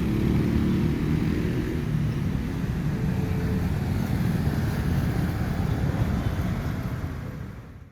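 Motor vehicle engine running close by with road traffic noise, fading out near the end.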